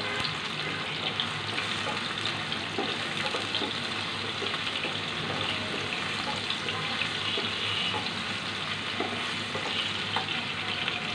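Sliced garlic sizzling steadily as it fries lightly in hot oil in a nonstick pan, stirred with a spatula that gives small scraping ticks against the pan.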